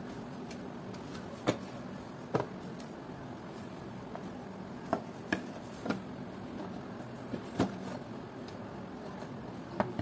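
Hard plastic clicks and knocks as a hand mixer's motor and gear assembly is handled and seated into its plastic housing: about seven sharp taps at irregular spacing. A steady low hum runs underneath.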